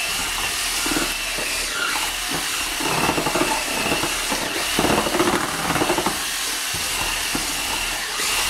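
Cordless drill running steadily with a paint-mixer paddle churning joint compound in a plastic bucket: a constant high motor whine over a wash of noise from the stirred mud.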